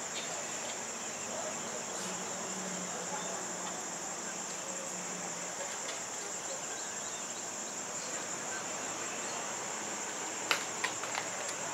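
Steady high-pitched insect chorus, with a few sharp clicks near the end.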